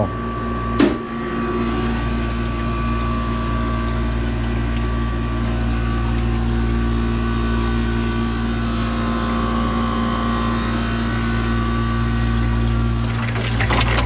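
Commercial ice machine running with a steady mechanical hum and a few constant tones from its motors. A short click about a second in.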